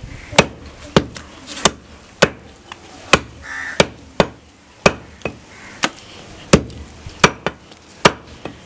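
Large butcher's knife chopping goat meat on a wooden chopping block: about a dozen sharp chops at an uneven pace, roughly one and a half a second.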